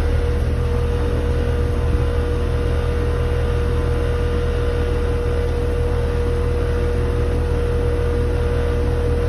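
Air-conditioning condensing unit running close by: a steady low machine hum with a steady higher whine over it.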